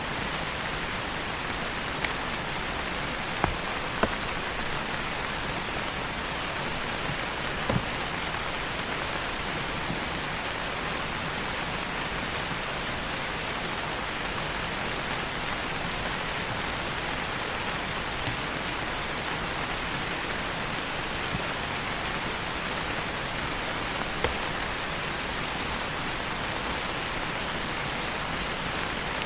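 Steady rain falling, an even hiss with a few sharp ticks of single drops scattered through it.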